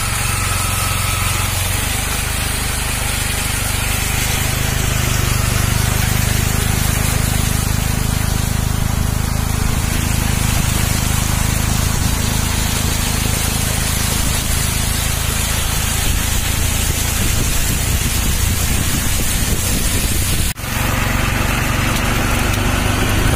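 Small motor vehicle's engine running steadily while its wheels throw up spray driving through shallow floodwater over a road. There is a brief break about twenty seconds in.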